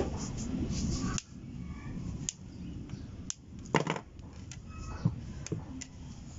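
Small clicks and taps of hands handling an electric fan motor's wound stator and its cable-tied lead wires, with one louder knock near the middle. A steady low background rush cuts off about a second in.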